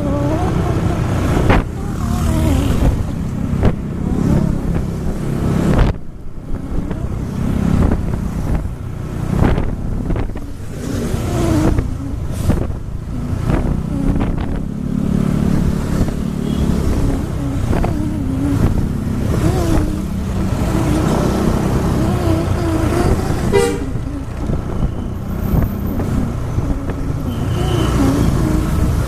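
Motor vehicles running on the road: steady engine and road noise throughout, with loudness rising and falling.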